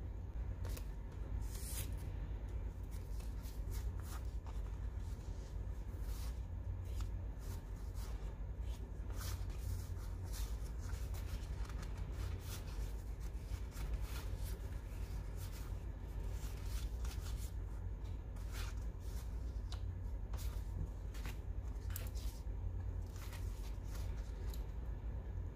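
Paper and stationery being handled for a journal spread: irregular crisp rustles and light taps throughout, over a steady low hum.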